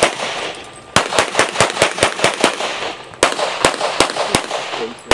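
Rapid pistol shots from a Springfield XDm in .40 S&W, fired in quick runs of about five shots a second, with a short pause about two and a half seconds in.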